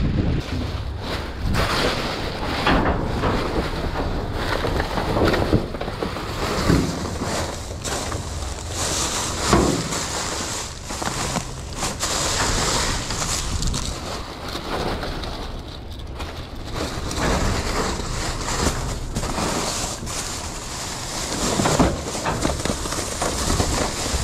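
Plastic garbage bags rustling and crinkling, with irregular knocks, as gloved hands rummage through bagged groceries in a metal dumpster, over a steady low rumble of wind on the microphone.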